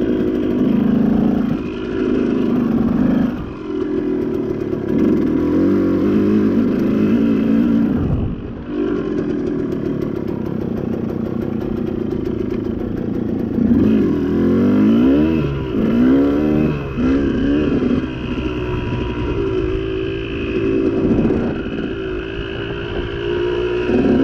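Dirt bike engine on an off-road trail, its revs rising and falling again and again as the throttle is worked, with a short drop in revs about eight seconds in.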